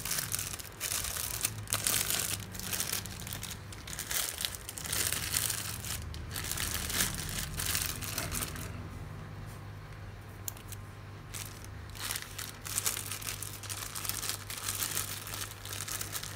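Thin clear plastic bag crinkling as it is pulled over a small seed pot and gathered shut by hand, with a quieter spell past the middle.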